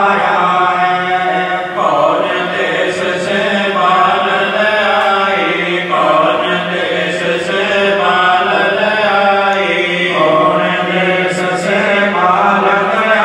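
Voices chanting a devotional evening aarti hymn, a continuous sung chant that moves in phrases about two seconds long.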